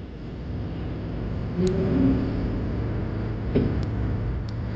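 Audi/Volkswagen/Porsche EA839 V6 engine running steadily, with a few faint sharp clicks over the running sound: the abnormal rocker arm noise.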